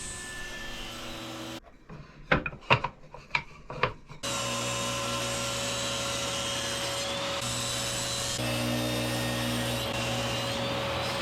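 Power saw running steadily while cutting hardwood strips to width. A little over a second in it drops away for a few seconds of sharp wooden knocks, then runs steadily again.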